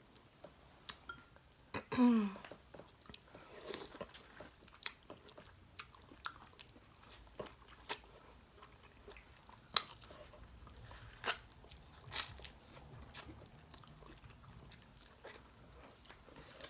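Eating a boiled crawfish and shrimp meal: scattered sharp clicks and cracks of shells being broken and peeled, with chewing and lip smacks. A brief voice sound with falling pitch comes about two seconds in.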